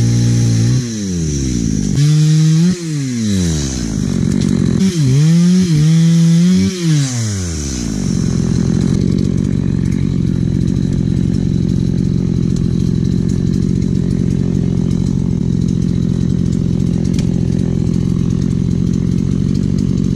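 Chainsaw engine revved up and down several times, its pitch swooping high and dropping back, then held running at a steady speed for the rest.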